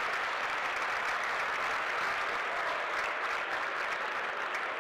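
Arena crowd applauding steadily, many hands clapping at once.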